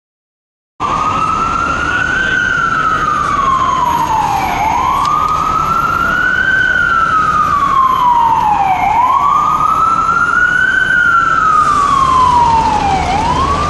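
Emergency vehicle siren wailing, rising and falling in slow cycles about four seconds long, over steady city traffic noise. It cuts in suddenly about a second in.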